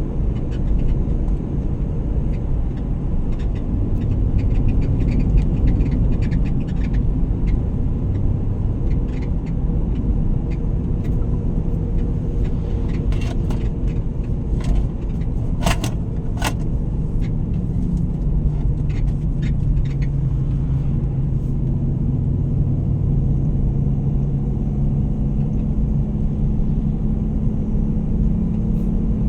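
A motor vehicle travelling on the road: a steady low engine and road rumble, with the engine note rising a little in pitch in the second half. A few sharp clicks come about halfway through.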